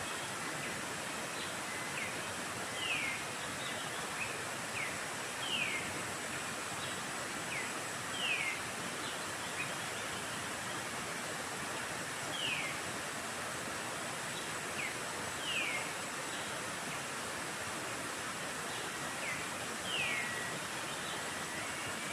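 Forest ambience: a steady rushing hiss, with a bird repeating a short, falling call every few seconds.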